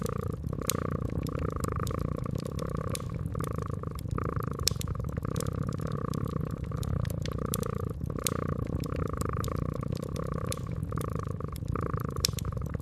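A cat purring steadily, its purr swelling and fading about once a second with each breath, over a wood fire crackling with scattered sharp pops.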